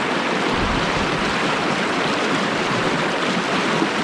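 Fast mountain river water rushing steadily over rapids.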